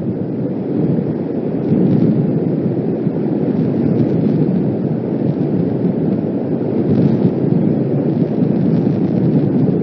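Strong, gusting wind buffeting the nest camera's microphone: a loud, continuous rumble that swells slightly after the first second or two.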